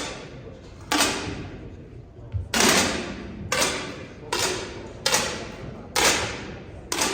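Several air rifles firing on an indoor range: sharp shots at irregular intervals, about seven in a few seconds, each with a short echoing tail.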